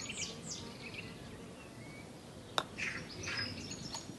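Small birds chirping with short, high, falling calls. About two and a half seconds in there is a single sharp click, the putter striking the golf ball.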